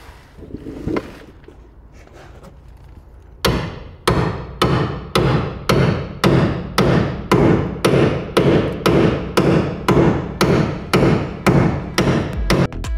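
Hammer blows driving a spot-weld removal chisel into a rusted steel car sill panel. The blows start a few seconds in and come steadily, a little under two a second, each a sharp metallic hit that dies away quickly.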